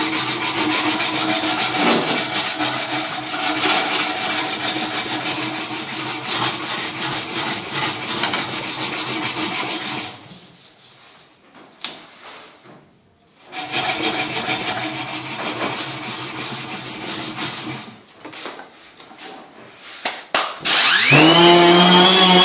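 Wood being abraded as a bow is shaped: a continuous rasping rub for about ten seconds, a short pause, then a shorter run. Near the end a power tool's motor starts and spins up with a rising whine.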